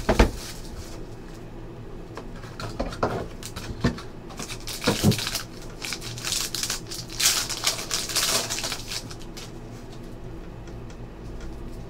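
Trading-card packaging being opened by hand: a shrink-wrapped box handled with a few clicks and taps, then a foil pack crinkling and tearing in bursts about six to eight and a half seconds in, before the stack of cards is slid out.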